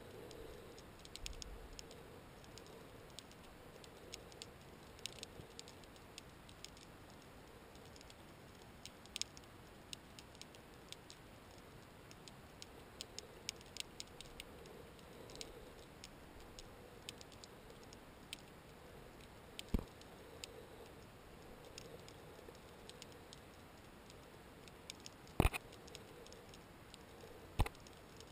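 Underwater ambience: scattered faint clicks and ticks at an irregular pace, with three sharper, louder clicks in the last third, over a faint steady hum.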